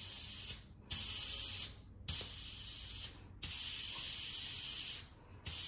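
Air hissing out of a dirt-bike tyre through an inflator gauge's release valve in about five spurts of roughly a second each, with short pauses between. The outer tyre of a TuBliss tubeless system is being bled down toward about 0.3 bar.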